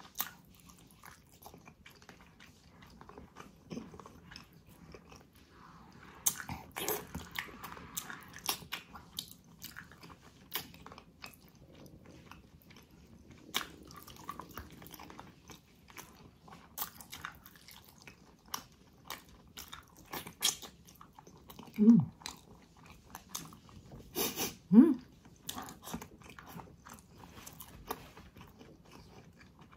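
Close-up mouth sounds of eating stewed ox feet: wet chewing, biting and lip-smacking on gelatinous skin and tendon, with many quick sticky clicks throughout. Twice in the later part a short voiced sound from the eater stands out as the loudest moment.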